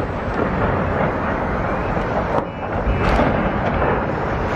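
Continuous heavy rumble of distant rocket shelling from an Uragan multiple rocket launcher, with two faint sharp cracks about two and a half and three seconds in.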